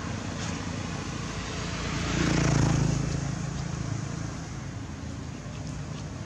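A motor vehicle passing by: a steady engine-and-road hum that swells about two seconds in and fades away again by about four seconds.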